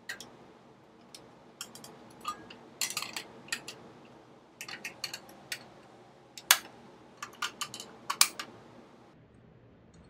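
Removable metal nonstick plates of an electric waffle maker being unclipped and clipped into place: a string of sharp clicks and clacks, the loudest about six and a half and eight seconds in.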